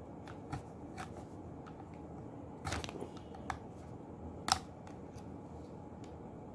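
Small flat-blade screwdriver prying at the plastic top cover of a DC magnetic contactor: a handful of sharp plastic clicks and snaps as the tip works the cover's latches, the loudest about four and a half seconds in.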